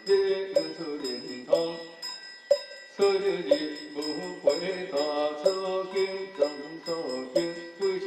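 Taoist priests chanting scripture in a steady sung recitation, kept in time by wooden-fish strokes about once a second, with a high metallic ringing held underneath. The chant breaks briefly for breath about two and a half seconds in.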